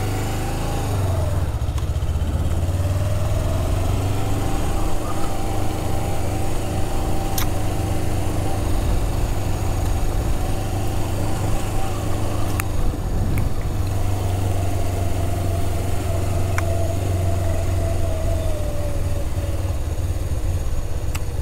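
Motorcycle engine being ridden: it pulls up in pitch a few seconds in, holds a steady note while cruising, then eases off near the end, over a steady low rumble. A few sharp clicks are heard along the way.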